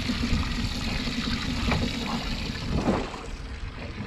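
Water sloshing and trickling around a small boat and its live well, over a steady low rumble.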